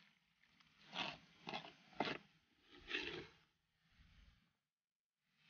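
Hands scooping a damp sand-and-cement mix out of a tub and dropping it into a steel brick mould: a handful of short gritty scrapes, about one a second.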